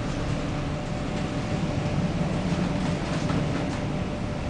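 Steady low rumble and hum of a cargo ship labouring in a storm, heard from inside the bridge, with a few light ticks or rattles.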